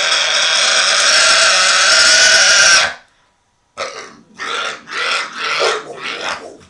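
Pig squealing loudly while held down, one long continuous squeal that cuts off suddenly about three seconds in. After a brief pause comes a string of about six short, loud squeals.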